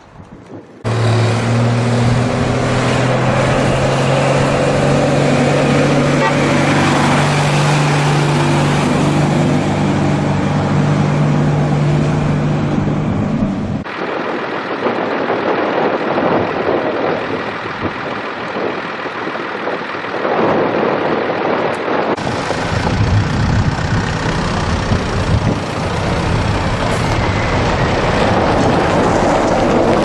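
Fire truck engines in several cut-together shots: a steady engine hum through the first half, then quieter outdoor noise after a cut. From about two-thirds in, a forest fire service truck is driving along a dirt track.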